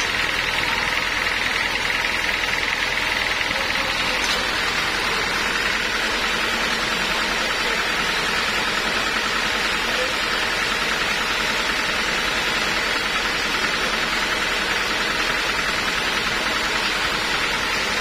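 Homemade band sawmill running steadily without cutting: its engine and moving blade make a constant mechanical hiss and hum with no change in level.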